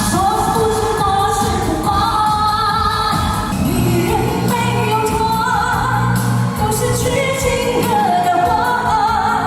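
A singer's voice carrying a melody in long, gliding phrases over continuous backing music.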